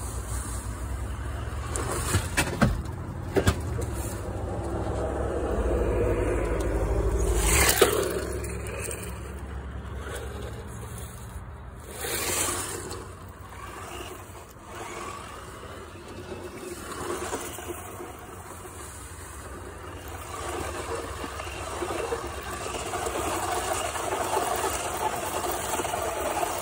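Four-wheel-drive electric RC truck driving over dirt, its tyres scraping, with a low rumble through the first several seconds. A few sharp knocks come in that stretch, the loudest about eight seconds in.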